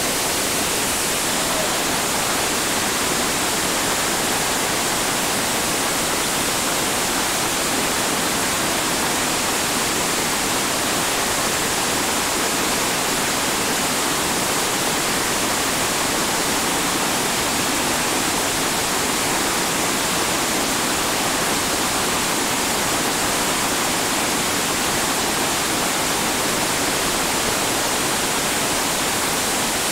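Steady, unbroken roar of whitewater pouring over bedrock drops on a creek.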